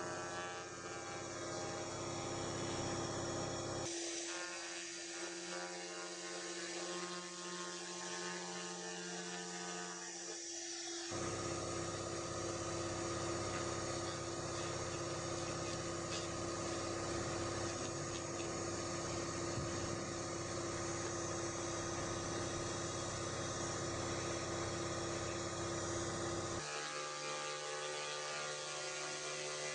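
A 500-watt laser cleaning machine running as its beam cleans an aluminum part: a steady electric hum and buzz made of several held tones. The mix of tones shifts abruptly about 4, 11 and 27 seconds in.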